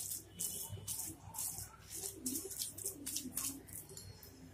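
Metal masher pressing and scraping through boiled vegetables in a non-stick pan, in quick repeated wet strokes, about two or three a second, as they are mashed for pav bhaji.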